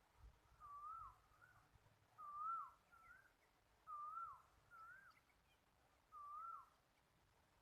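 A bird repeating a short whistled call, a note that rises and then drops sharply, about every one and a half seconds, some calls followed by a shorter, higher note.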